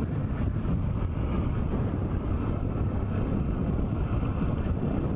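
Macbor Montana XR1's 125 cc single-cylinder engine running steadily under load in second gear while ridden off-road, with wind noise on the microphone.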